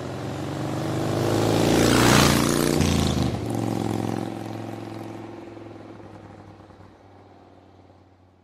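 Motorcycle engine sound effect: the engine swells to a rev with a rushing whoosh about two seconds in, drops in pitch like a pass-by, then fades out slowly.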